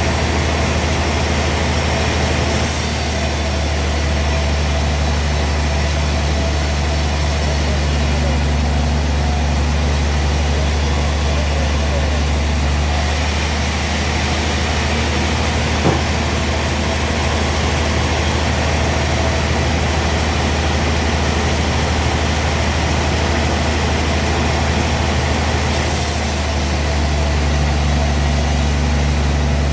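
Heavy sawmill engine running steadily at a constant speed, a deep even hum with no revving. There is a single sharp click about 16 seconds in.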